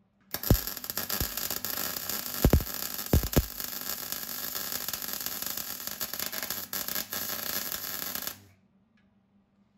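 MIG welder arc crackling steadily as a continuous bead is run along the floor-panel join, with a few sharp pops in the first few seconds. It starts just after the opening and stops abruptly after about eight seconds as the trigger is released.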